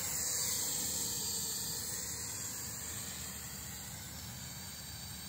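Carrera RC Motion Copter, a small toy quadcopter, with its motors and propellers running as a high, hissing whine while it lifts off and climbs away, slowly growing quieter.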